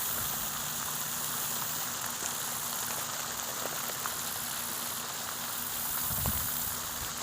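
Steady outdoor hiss, with a brief low thump about six seconds in.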